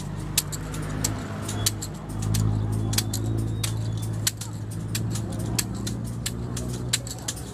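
Flagellant's whip of bamboo sticks striking a bare back in a steady rhythm, a sharp slap about every two-thirds of a second. Under it a vehicle engine idles with a steady low hum.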